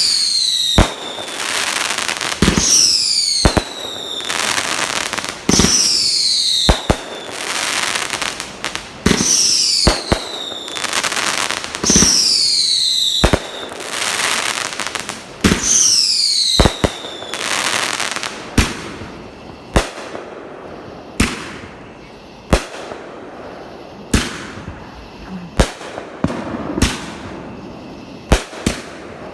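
Consumer fireworks going off: about six shots in the first half each give a falling whistle and a loud burst. In the second half they are followed by a run of sharp single bangs roughly every second and a half.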